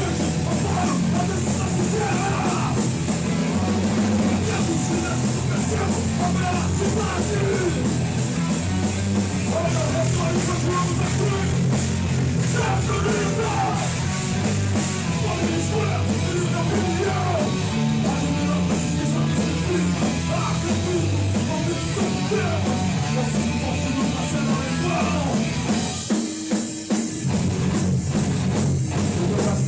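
Hardcore punk band playing live: loud, fast full-band music with a drum kit. About 26 seconds in, the bass drops out and the band plays a few sharp, stop-start accented hits.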